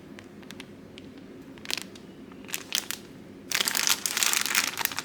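Plastic packets of embroidery thread being handled: a few light rustles and clicks, then steady plastic crinkling from about three and a half seconds in.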